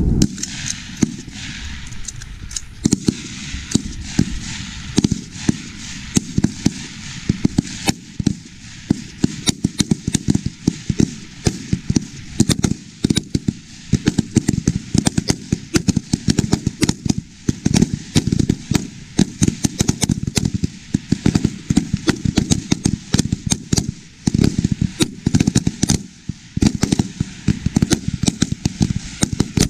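Rifle fire from many shooters on a firing line: a rapid, irregular string of sharp shots, several a second and often overlapping, some loud and close, others fainter, as a timed rapid-fire string is shot.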